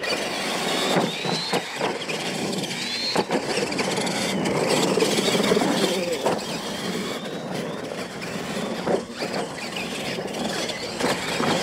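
R/C monster trucks racing across a dirt course: motors and gears whining under full throttle, with short high rising whines as they accelerate, over the rush of tyres on loose dirt.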